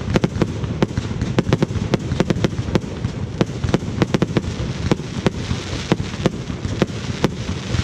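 Fireworks display: a rapid, irregular barrage of sharp bangs and cracks, several a second, over a continuous low rumble.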